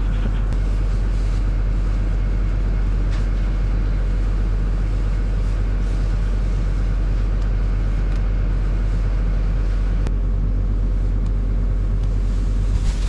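A farm loader's engine running steadily at one constant speed, a continuous low hum, with a few faint knocks from straw bales being handled.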